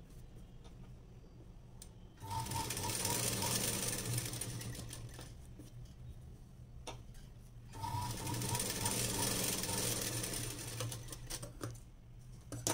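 Black domestic sewing machine running as it stitches fabric, in two runs of a few seconds each with a short pause between them, the second run tailing off. A few sharp clicks near the end.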